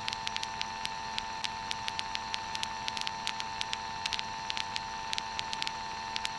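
Aircraft headset intercom audio during a full-power climb just after takeoff: a steady hum and hiss with frequent faint crackling clicks, several a second.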